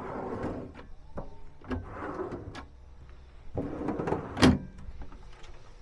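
Cabinet drawers sliding open and shut on their runners three times, with small clicks of latches and a sharp knock about four and a half seconds in.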